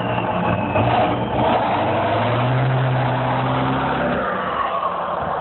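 Ford F-350 pickup's engine running hard under load as it pulls a stuck SUV out of snow. The note climbs a little, holds, then drops off about four seconds in.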